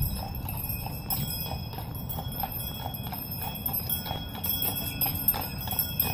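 Horse hooves clip-clopping at a walk on hard ground: short, evenly spaced knocks, about three a second.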